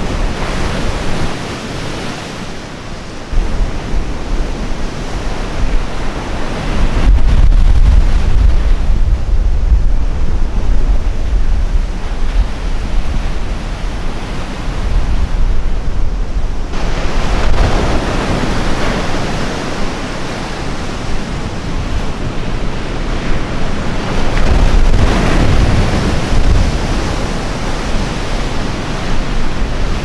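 Large storm waves breaking and washing up a gravel lake shore in a gale, the surf rising and falling as each wave crashes. Strong wind buffets the microphone with a heavy low rumble throughout.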